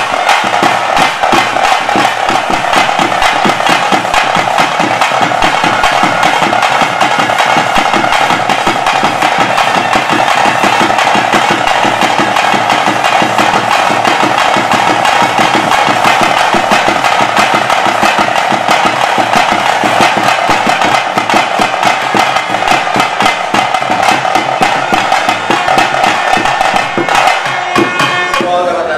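Loud ritual music for a bhuta kola dance: fast, dense drumming with a wind instrument holding a steady tone over it. The music breaks off near the end.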